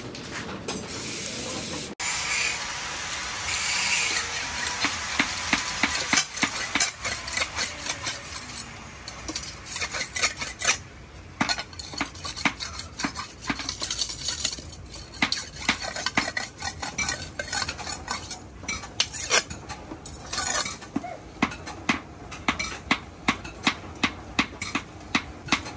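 An aerosol spray can hissing for about two seconds, then a steel machete blade being sharpened on a wet stone: a steady run of scraping strokes, about two a second.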